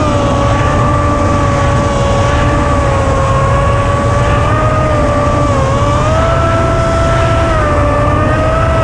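Electric motor and propeller of an FPV flying wing whining steadily in flight, the pitch dipping briefly about five and a half seconds in and rising again soon after with throttle, over heavy wind rush on the onboard camera.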